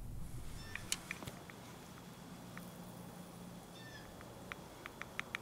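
Faint handling noises as a wooden stopper is worked out of a small powder horn: a few light clicks about a second in, short squeaks near the start and again about four seconds in, then a quicker run of small clicks near the end.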